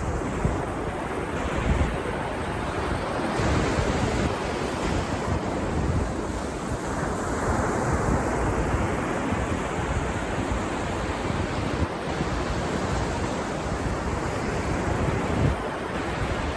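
Ocean surf breaking and washing up a sandy beach, a steady rush that swells as a wave comes in, with low wind rumble on the microphone.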